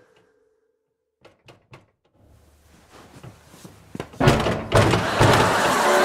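Three quick knocks on a door about a second in, then music comes in loudly about four seconds in.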